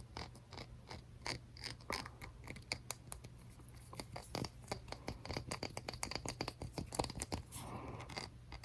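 Light, irregular tapping and scratching on a small trinket keepsake that holds a real egg. Many quick, soft clicks come at uneven intervals.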